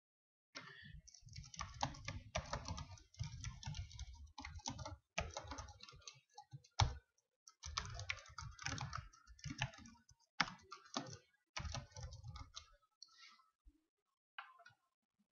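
Typing on a computer keyboard: quick runs of keystrokes with short pauses between them, thinning to a few single keystrokes near the end.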